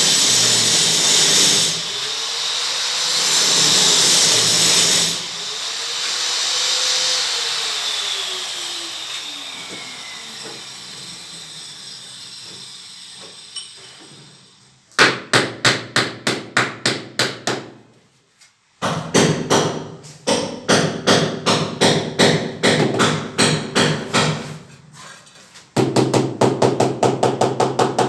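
An electric power tool runs, its pitch rising and falling as it speeds up and slows, then dies away about halfway through. After that come fast runs of sharp knocks, several a second, with short pauses between runs.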